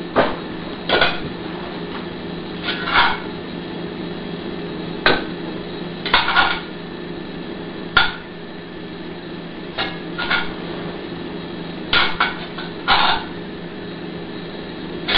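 A utensil clinking and scraping against a cast-iron skillet and a plate as roasted bell peppers are served out, in short separate clinks a second or two apart, over a steady low hum.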